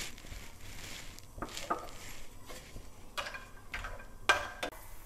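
Wooden spatula stirring cashew nuts as they fry in ghee in a nonstick pan, giving several soft knocks and scrapes against the pan, roughly in pairs.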